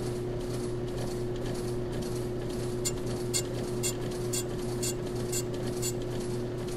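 Ammco brake lathe running with a steady hum as a brake drum spins on it. About three seconds in, a light tick comes about twice a second for some three seconds as the cutting bit touches the turning drum to put in a test scratch.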